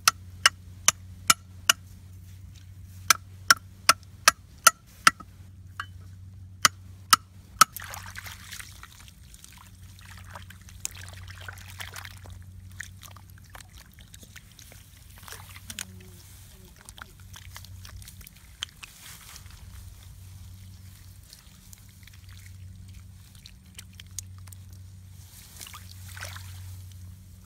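Three quick runs of sharp knocks, about two or three a second, then water sloshing and splashing.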